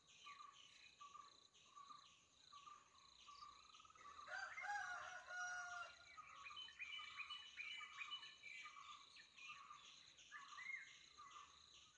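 Faint forest insect chorus, a steady chirping repeated about twice a second. Bird calls, whistles gliding up and down, come over it for about two seconds starting four seconds in, and a single short whistle sounds near the end.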